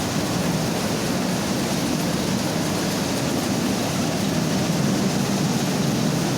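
Mini rice milling machine running: a loud, steady mechanical noise with a strong low hum and no breaks.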